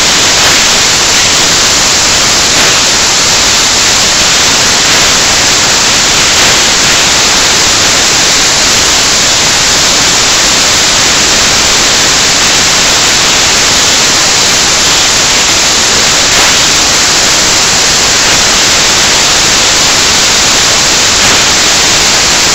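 Loud, steady static hiss, brightest in the upper range and unchanging throughout, masking any other sound.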